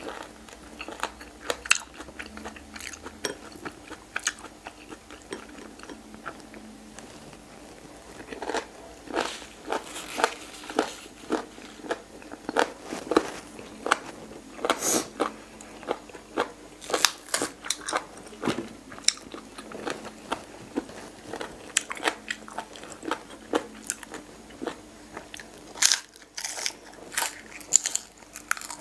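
Close-miked chewing of boiled pig's ear, the cartilage giving many sharp, crisp crunches in irregular runs, with a bite of fresh green onion near the end.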